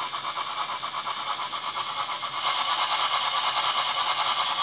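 Dapol Black Label model LNER A4 locomotive's sound decoder playing fast, even steam chuffs through its small on-board speaker as the model runs at speed on a rolling road. The chuffing gets louder about halfway through.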